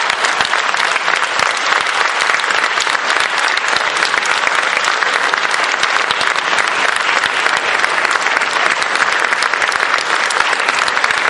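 Large audience applauding steadily, a dense, even clapping.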